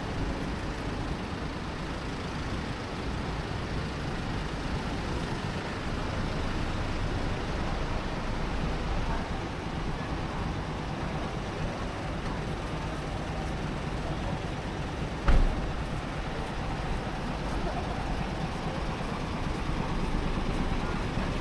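City street ambience: steady traffic noise from passing cars and buses. A single short thump stands out about three-quarters of the way through.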